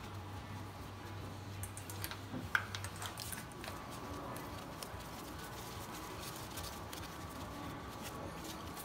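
Light scattered clicks and taps of gloved hands and fittings at a spark plug hole on the cylinder head, as the compression tester is moved to the next cylinder. The sharpest click comes about two and a half seconds in, over a steady low hum.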